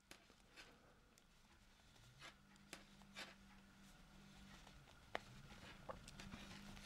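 Circular knitting needles clicking faintly as plain stitches are knit: a handful of light, separate ticks over a nearly silent room.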